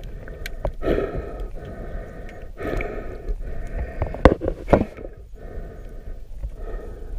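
Muffled water noise picked up by an action camera held underwater while snorkeling: rushing and sloshing that swells and fades several times. Two sharp knocks about half a second apart a little past the middle are the loudest sounds.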